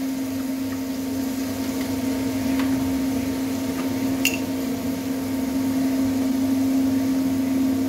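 A steady machine hum at one unchanging pitch, with a faint click about four seconds in.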